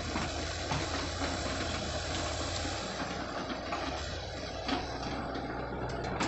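Diesel engines of crawler excavators running steadily as they work, with a few short knocks from the machines.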